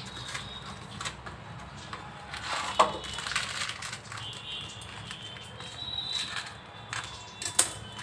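Kitchen handling noises: scattered clicks and knocks with some rustling, two sharper knocks standing out, about three seconds in and near the end.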